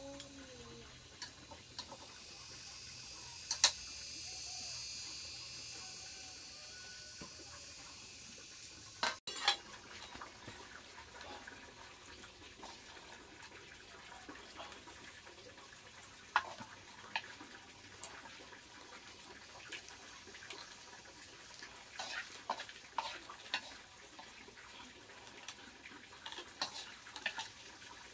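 Water running for several seconds, then scattered clinks and knocks of pots, dishes and utensils being handled.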